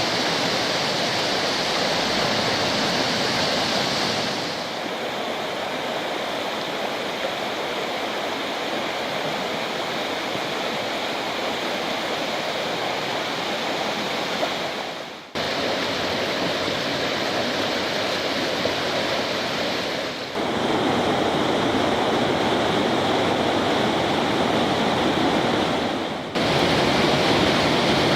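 Rushing water of a mountain stream pouring over rapids and small falls, a steady dense roar. Its loudness and tone change abruptly several times, about four, fifteen, twenty and twenty-six seconds in, with a brief dip just before the change at fifteen seconds.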